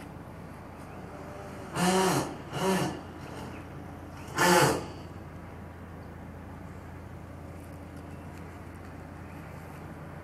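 Three short calls, each rising then falling in pitch, the third the loudest, over a steady low hum.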